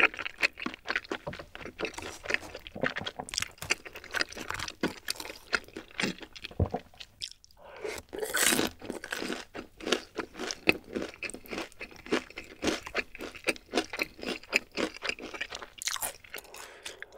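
Close-miked mouth sounds of a person chewing food, a dense run of wet clicks and crunches, with a short pause about seven seconds in.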